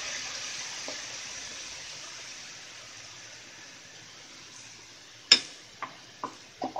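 Wine and water sizzling and bubbling in a frying pan of hot oil with fried garlic and flour for a green sauce, the hiss slowly dying down. About five seconds in comes a sharp knock, then a few light taps.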